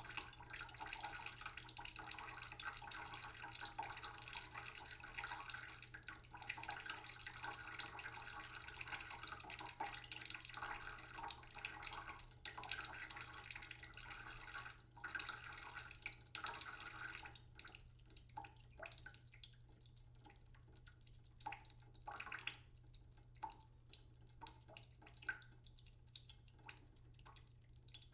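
Tap water running slowly into a cooking pot in a sink, a faint steady splashing. About two-thirds of the way through the stream thins to a trickle of separate drips and small splashes.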